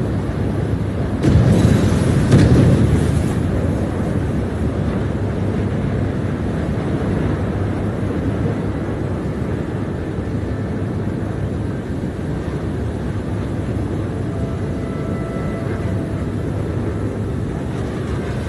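Sound-effect rumble of a spaceship in flight, a steady low roar of engine and air, with a louder explosion-like burst about a second in that dies back down over a couple of seconds.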